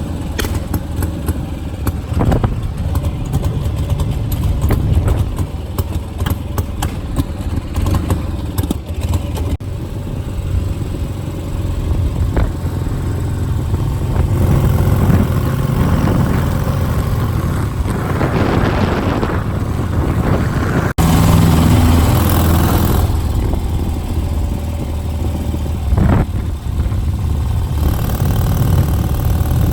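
Motorcycle engines running, a steady low engine drone with louder swells about 18 seconds in and again around 22 seconds, and a sharp knock about 26 seconds in.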